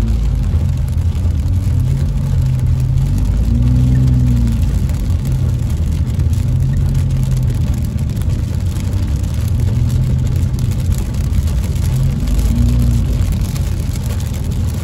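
A car driving on a rain-soaked road, heard from inside the cabin: the engine hum rises and falls in pitch over a steady rumble of tyres on wet pavement, with rain ticking on the windshield.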